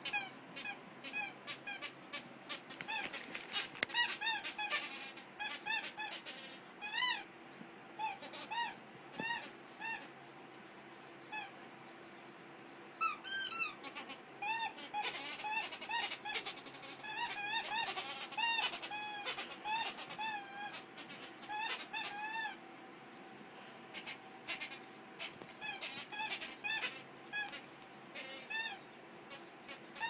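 A rubber squeaky dog toy chewed by a labradoodle puppy: a long run of short, high squeaks, each rising and falling in pitch. They come in irregular clusters of several at a time, with a few longer squeaks among them.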